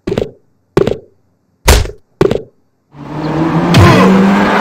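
Sound effects played back on a stickman animation's soundtrack: four short thuds, then about three seconds in a loud car-driving sound effect swells in and runs on.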